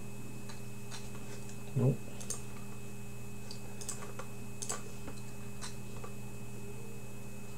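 Irregular typing and clicking on a computer keyboard, scattered single keystrokes over a steady electrical hum, with a brief sound from a person's voice about two seconds in.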